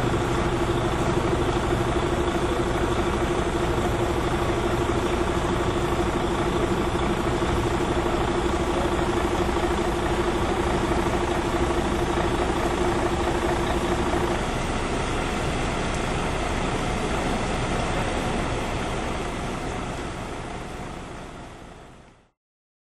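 Fire engine's engine running steadily at idle, a continuous drone with a held hum that drops out about two-thirds of the way through, before the sound fades away.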